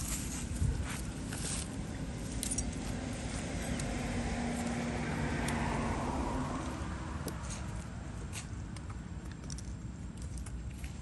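Engine noise of a passing motor vehicle that swells to a peak around the middle and fades, over a low steady rumble, with scattered small clicks and taps.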